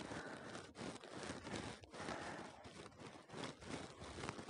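Faint, uneven noise inside a slowly moving car: cabin and road noise, with rustling that comes and goes.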